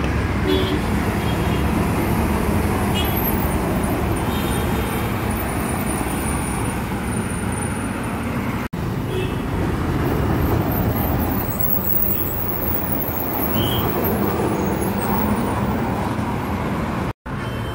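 Road traffic: buses, cars, auto-rickshaws and scooters passing, with a steady engine rumble. The sound cuts out abruptly twice, briefly.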